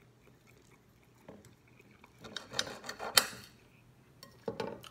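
Metal knife and fork scraping and clinking against a plate while cutting chicken. It is quiet for the first two seconds, then comes a run of scrapes and clinks with one sharp clink about three seconds in, and another short clatter near the end.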